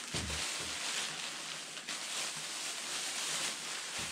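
Thin plastic grocery bags rustling and crinkling as they are handled and unpacked, with a few soft knocks in the first second as items are set down.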